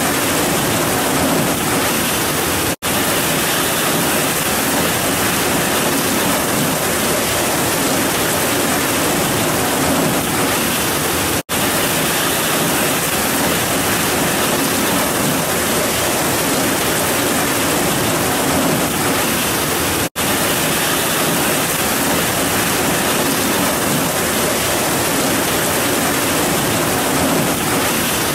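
Heavy rain pouring down in a steady, dense hiss, broken three times by split-second gaps of near silence.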